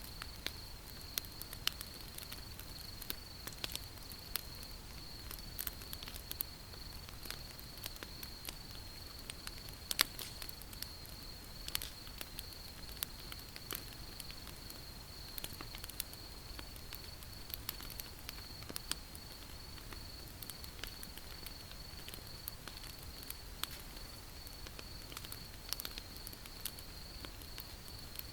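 Wood fire crackling, with irregular sharp pops and snaps, one louder snap about ten seconds in. A steady high-pitched tone runs underneath.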